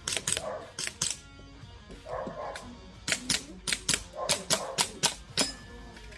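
A string of sharp airsoft gun shots, about a dozen irregularly spaced, some in quick pairs, with a dog barking a few times between them.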